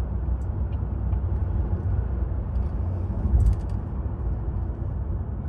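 Steady low road and tyre rumble heard inside the cabin of a car driving at speed, with one short knock about three and a half seconds in.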